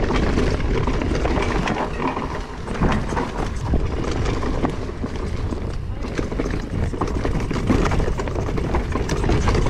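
Vitus Sommet mountain bike descending a dirt singletrack: tyres rumbling over the dirt and roots, with the chain and frame rattling in quick irregular clicks and knocks, under steady low rumble from the riding.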